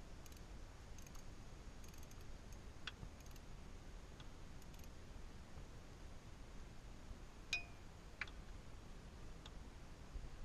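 Hand socket ratchet working a bolt: faint scattered ratchet ticks, then a few sharper metal clicks, the loudest with a short ring about seven and a half seconds in.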